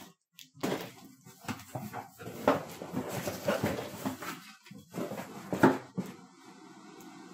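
Cardboard shipping boxes being handled and pulled apart: a run of rustles, scrapes and knocks, the loudest about two and a half and five and a half seconds in.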